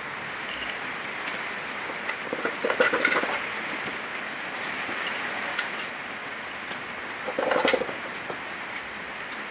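Steady workshop hiss with many sharp metallic clicks and two louder clatters of metal parts, a little over two seconds in and again about seven seconds in, as pistons and connecting rods are pulled from a classic Mini engine block.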